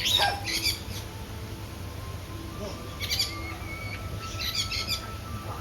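Parrots calling: a quick falling squawk right at the start, then bursts of short shrill chattering calls about three seconds in and again near the end.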